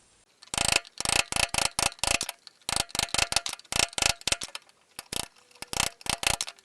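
Rapid, irregular series of sharp metal-on-metal blows with a faint ringing note, in quick runs with short pauses: the steel outer shell of a VAZ-2110-family suspension arm's silent-block bushing being knocked out of its eye.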